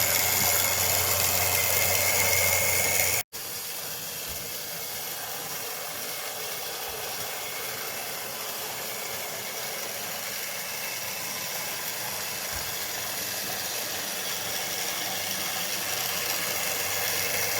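HO scale box cab model locomotive's motor and big-reduction gear train running loud at three-quarter power, flywheel removed. Despite cleaning and lubrication it is still very loud. A sudden cut about three seconds in drops it to a quieter running noise that grows gradually louder toward the end.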